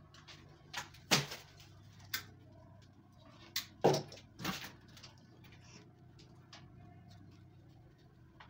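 Pliers working on electrical wire while a short appliance cable is being joined: a handful of sharp snaps and clicks, the loudest about a second in and just before the middle, with smaller ticks of wire handling between.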